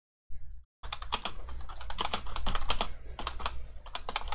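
Computer keyboard being typed on: quick, irregular key clicks over a steady low hum, starting just under a second in.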